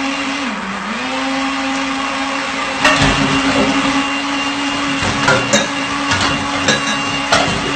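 Countertop blender running steadily, its motor pitch dipping briefly about half a second in and then recovering. Several sharp clinks and knocks land over it.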